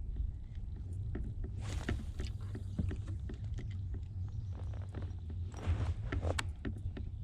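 Kayak being handled on the water: scattered knocks and bumps against the plastic hull, with two longer water swishes over a steady low rumble.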